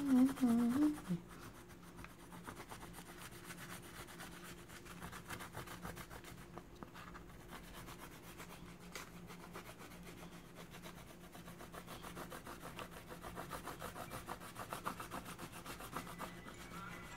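Oil pastel scribbling on lined notebook paper: a rapid back-and-forth scratching of the stick as an area is coloured in, somewhat louder past the middle.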